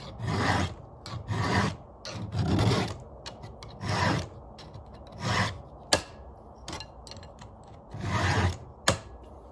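Round chainsaw file rasping by hand across the cutters of a full-chisel skip chain on a Husqvarna bar: about six separate strokes at uneven spacing, with two sharp metallic clicks in the second half.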